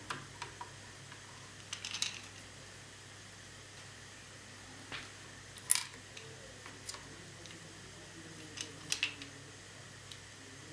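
Scattered small clicks and taps of hard plastic and metal laptop parts and tools being handled and fitted during reassembly of the cooling module, the loudest about six seconds in.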